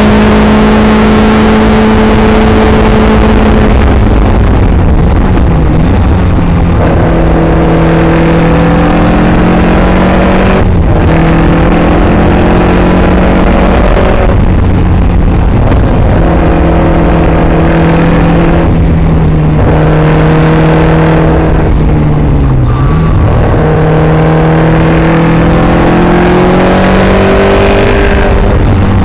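Caterham Superlight's engine heard from the open cockpit under hard acceleration, its pitch climbing through the revs and breaking off every few seconds as the throttle is lifted for gear changes, with a short dip and recovery once. A heavy low wind rumble lies under it throughout.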